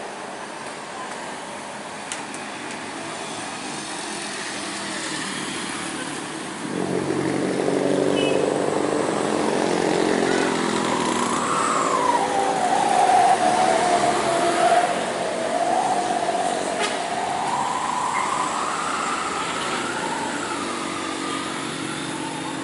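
Steady road traffic passing, with a truck's engine growing loud about a third of the way in as it comes close, and a wavering whine rising and falling through the middle and latter part.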